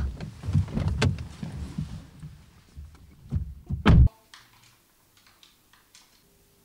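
Rustling movement inside a car as the occupants climb out, with a knock about a second in, then a car door slamming shut just before four seconds. After that, only faint room tone.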